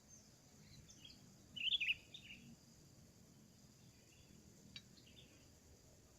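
Sooty-headed bulbul (kutilang) calling: a short burst of quick chattering notes about a second and a half in, with fainter chirps before and after it. A single sharp tick comes near the end.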